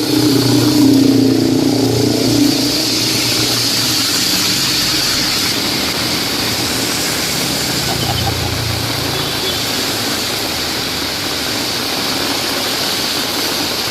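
Steady heavy rain, with motor vehicles passing on the wet road: an engine is loudest over the first couple of seconds and another passes about eight seconds in.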